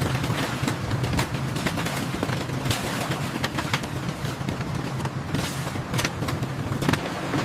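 An engine running steadily under a clatter of many irregular clicks and knocks.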